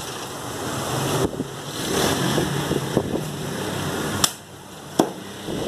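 A meat cleaver chopping mutton on a wooden butcher's block: about four sharp chops at uneven spacing, over steady background noise.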